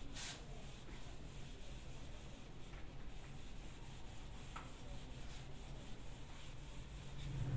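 Whiteboard eraser rubbing marker off a whiteboard in repeated wiping strokes, faint, over a low steady room hum.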